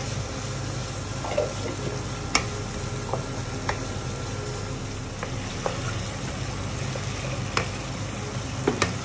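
Spice paste and potatoes frying in a nonstick wok while a spatula stirs through them, scraping and tapping against the pan in sharp clicks every second or so. A steady low hum runs underneath.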